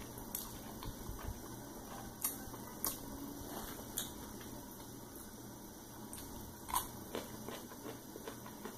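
A person eating noodles with chopsticks from a ceramic bowl: quiet chewing with a scattered handful of short sharp clicks and taps, each a second or more apart.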